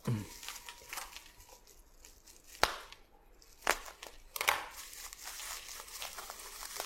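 Packaging of a RAM module being cut open with a knife and pulled apart: crinkling and tearing, with a few sharp clicks, the loudest about two and a half seconds in.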